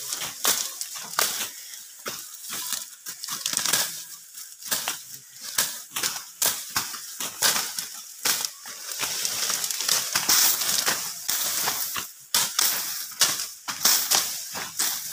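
Dry grass and stalks crackling, snapping and rustling as a man cuts and tears out dense weeds. The cracks come in a quick, irregular run.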